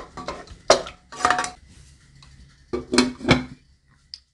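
Wooden spoon stirring frozen berries in a pot: a handful of short scrapes and knocks against the pan. The sound cuts off suddenly just before the end.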